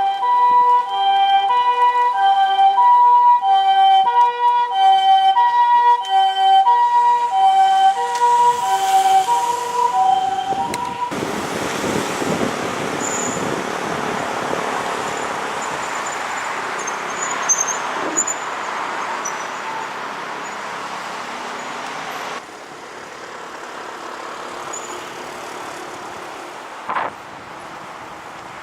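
Japanese ambulance two-tone siren alternating steadily between a higher and a lower note ("pee-paw"), which cuts off about eleven seconds in. After it, only a steady rushing of road and wind noise remains.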